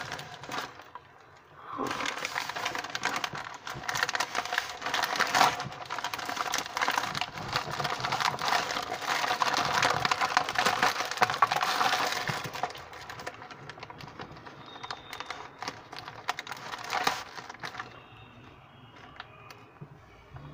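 Plastic courier mailer bag crinkling and rustling as it is pulled open by hand: a dense run of crackles for most of the first half, one more burst later, then only faint rustles near the end.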